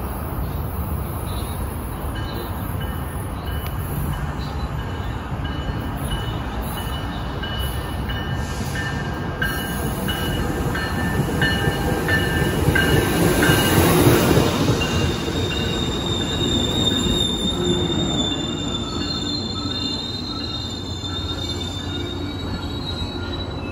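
Tri-Rail double-deck commuter train, cab car leading, running into the station and past close by. Its rumble grows to its loudest about halfway through, and the wheels squeal in thin high tones as it slows.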